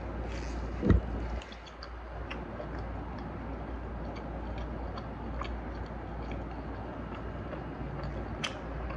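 A man chewing a mouthful of grilled chicken and rice close to the microphone: scattered small clicks and smacks from his mouth. There is one louder low thump about a second in, over a steady low hum.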